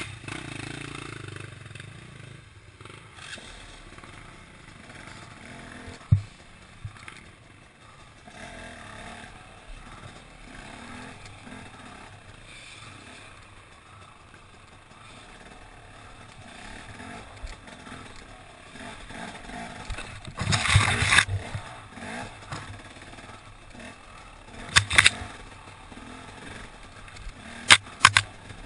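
Enduro motorcycle engine running steadily as the bike rides over a rough forest trail. Sharp knocks and clatter come from the bike over the ground: one loud knock about six seconds in, then louder bursts in the second half.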